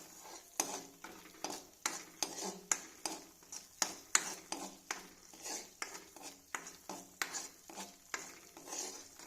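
A spoon stirring ginger paste as it fries in ghee in a pan, knocking and scraping against the pan about three times a second over a soft sizzle.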